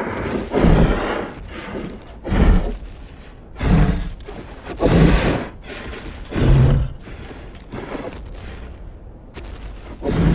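Designed creature sound effect for a tapiraphant, a made-up tapir–elephant beast: a string of deep, heavy calls. There are about six loud ones, roughly every one to two seconds, with a longer gap before the last, which comes near the end.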